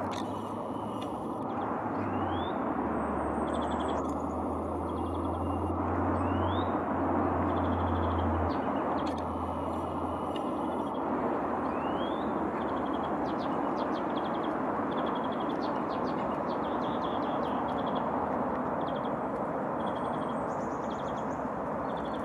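Small songbirds chirping: short rising calls every few seconds and quick runs of high notes. Under them is a steady background rumble, with a low hum that fades out about eight seconds in.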